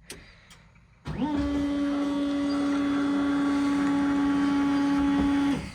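A steady electric motor whine starts about a second in, holds one even pitch for about four seconds and cuts off abruptly.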